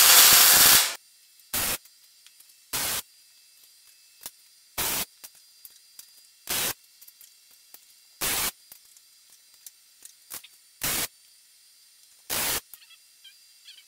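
MIG welder tack-welding steel flat bar: a crackling arc for about the first second, then about seven short tacks, each a fraction of a second long, coming every one to two seconds.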